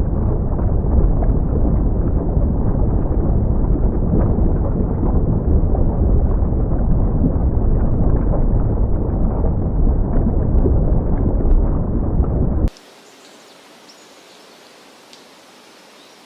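Loud, steady low rumble, like a thunder or eruption sound effect. It cuts off suddenly about three-quarters of the way in, leaving a quiet hiss with a few faint ticks.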